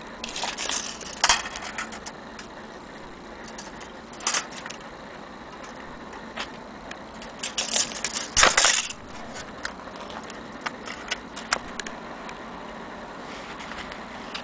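Handling clatter and metallic clinks from an antique Kienzle Vienna wall clock movement being lifted and turned over. The sounds are irregular, with the busiest clatter about a second in and again around eight seconds.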